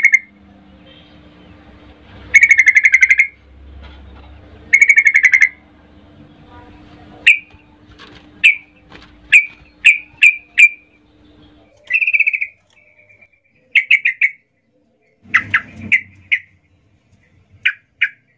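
Caged yellow-vented bulbul (trucukan) singing loudly in full aggressive song: three rich, buzzy phrases of about a second each, a couple of seconds apart, then from about seven seconds in a run of short, sharp chirps and quick clusters of notes.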